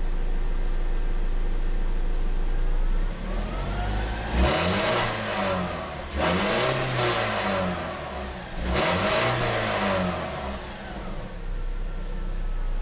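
BMW E46 four-cylinder engine idling, then blipped three times about two seconds apart, each rev rising and falling back to a steady idle, through an exhaust with one resonator removed. The engine is warmed up and idling normally, past its rough cold-start idle.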